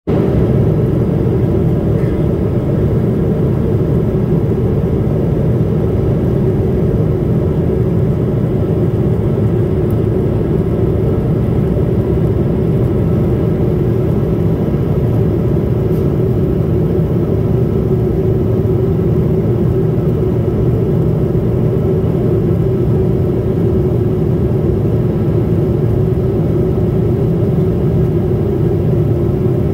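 Steady aircraft cabin drone in flight: engine and air noise, loud and unchanging.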